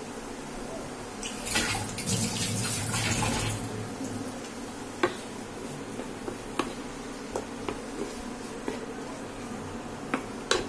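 Spatula stirring and tossing noodles in a hot pan: a rough scraping, rustling stretch early on, then scattered sharp clinks of the spatula against the pan over a steady hiss.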